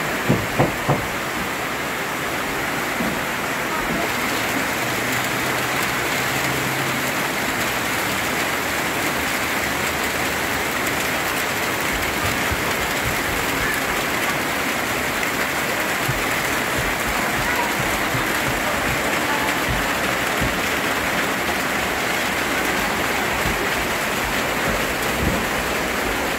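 Heavy tropical rain: a steady, even hiss of a downpour. Three short knocks in the first second.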